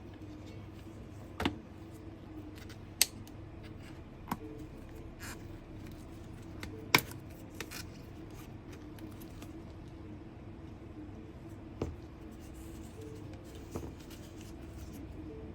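Handling noise from working on a cordless vacuum cleaner: about eight irregularly spaced sharp clicks and knocks, the loudest about seven seconds in, over a steady faint hum.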